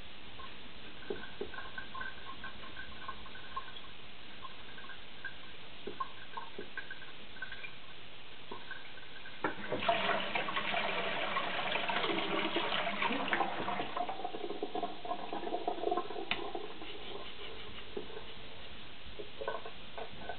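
Wet rubbing and splashing of a steel knife bevel on a water-soaked Japanese natural whetstone during kasumi polishing. It is loudest for about seven seconds from around the middle, with only faint light ticks before it.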